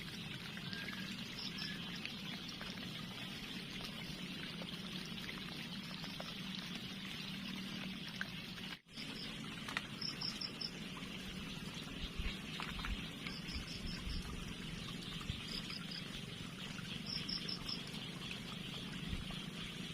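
Steady trickle of a small river's water, with short high chirps in groups of two to five that come back every few seconds.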